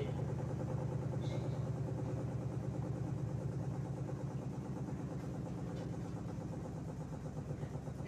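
Steady low hum, even throughout, with a couple of faint light ticks.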